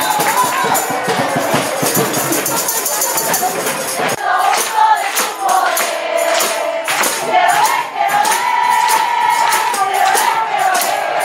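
Singing voices with a tambourine shaking in a steady rhythm. The low background drops away abruptly about four seconds in, and the singing goes on.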